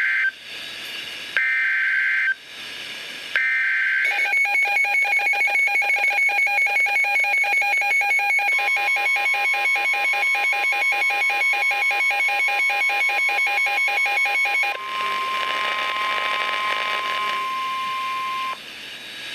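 NOAA Weather Radio alert: the screeching SAME data bursts of the digital header, a second long each with a second between, followed by a weather alert radio's rapid pulsing alarm beeps. About eight seconds in, the steady 1050 Hz warning alarm tone joins and carries on after the beeping stops, then cuts off shortly before the end, leaving radio hiss.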